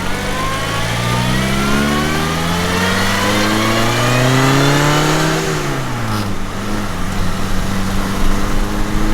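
1964 MG Midget Mark II's 1098cc four-cylinder engine pulling hard under acceleration, revs climbing steadily for about five seconds. The revs then drop quickly at a gear change and pick up again in the next gear.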